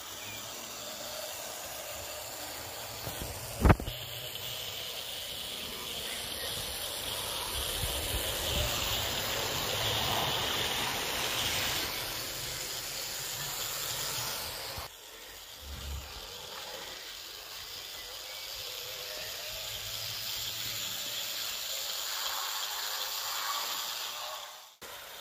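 Model train running on an outdoor garden layout: the steady whirr and rattle of a model locomotive and coaches rolling along the rails, with one sharp click about four seconds in.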